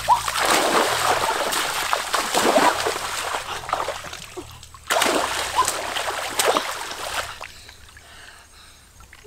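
Water splashing in two long spells with a brief pause between them, dying away about seven seconds in.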